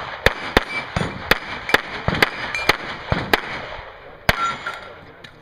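Pistol shots fired in quick succession, about two a second, during a timed action-pistol string. There is a pause before one last shot about four seconds in.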